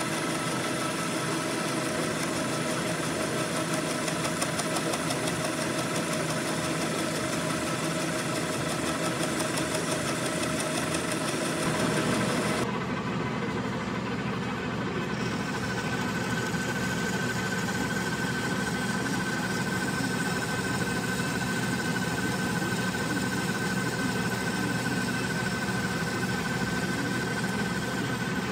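Metal lathe running, its tool bit turning down the wire-welded build-up on an electric motor shaft: a steady machine sound with several steady tones. About twelve seconds in, the high hiss drops away and a higher steady tone comes in.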